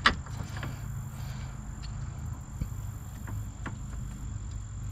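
Hand work on a steering rack's line fittings as the port plugs are taken out: one sharp click at the start, then a few lighter clicks and taps over a steady low hum.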